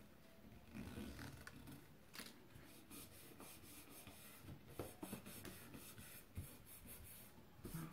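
Faint rustling and rubbing of a paper-backed sticker being peeled and smoothed down with the fingertips onto a porcelain plate, with a few light clicks.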